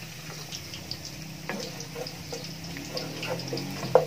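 Chopped ginger and tofu frying in hot oil: a steady sizzle with scattered small crackles. A single sharp knock near the end as a wooden spatula strikes the pot to stir the ginger.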